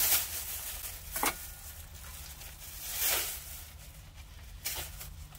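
Plastic shopping bag rustling and crinkling as it is handled, in three brief bouts, over a faint steady low hum.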